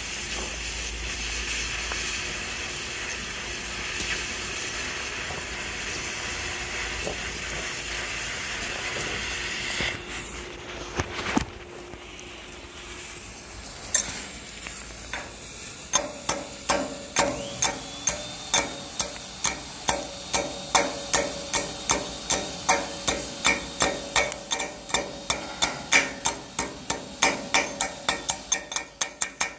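Arc welding on structural steel: a steady hissing crackle that cuts off about a third of the way in. After a couple of single knocks, a chipping hammer strikes slag off the fresh weld bead on the steel, about three quick metallic blows a second.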